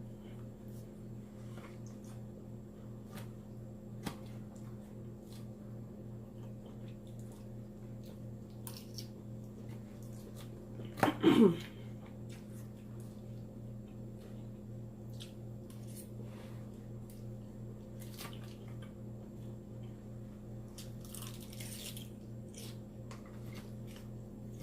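Mouth sounds of eating a soggy salad, soft chewing and squishing clicks, over a steady low hum. About eleven seconds in, one loud burp falls in pitch over about half a second.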